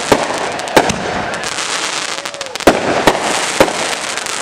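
Consumer aerial fireworks going off: a continuous crackle broken by five sharp bangs, with a faint whistling glide in the middle.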